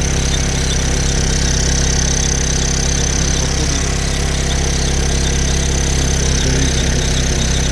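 Chevrolet Orlando engine idling, with a steady high-pitched whistle from the PCV breather membrane in the valve cover. The whistle is the sign of a damaged breather diaphragm, which the owner puts down to the valve cover having been washed.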